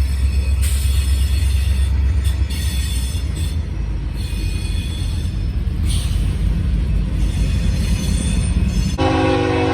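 Freight train rolling past with a heavy low rumble and on-and-off high-pitched wheel squeal. A locomotive horn starts sounding near the end.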